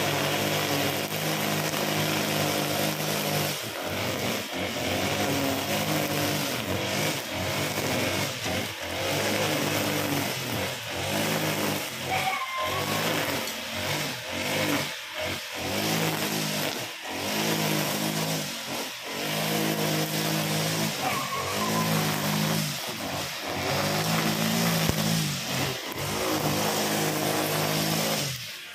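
Honda GX35 single-cylinder four-stroke brush cutter running at high speed while cutting grass, its engine note dipping briefly every second or two.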